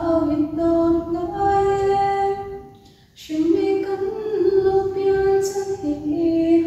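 A young woman singing alone into a handheld microphone: two long phrases of held, steady notes, with a short break about three seconds in.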